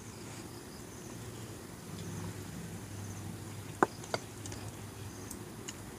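Quiet chewing of a mouthful of food, with two light clicks a little under four seconds in as a wooden spoon is set down.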